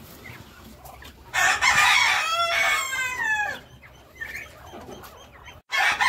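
A rooster crowing once, a long call of about two seconds starting about a second and a half in and dropping in pitch at the end.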